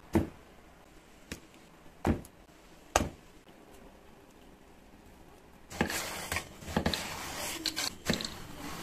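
Spoon knocking four times against a glass baking dish while mashed potato is scooped and spread in it. Then, past the middle, a knife slicing lengthwise through eggplant on a bamboo cutting board: scraping cuts with several sharp knocks of the blade.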